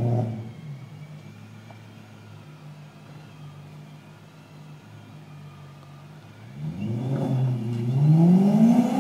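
BMW M3 V8 breathing through a Challenge X-pipe and Gintani race muffler, idling steadily. From about six and a half seconds in it is revved in rising and falling swells and grows much louder.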